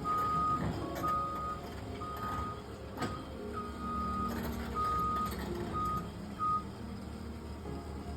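Tracked excavator's travel alarm beeping about seven times, roughly once a second, over its diesel engine running; the beeps stop near the end.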